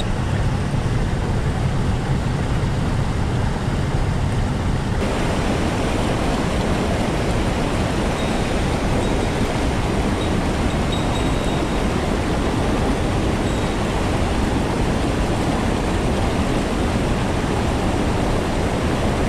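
Mountain stream rushing over rocks and rapids: a steady, even noise of running water that grows fuller from about five seconds in.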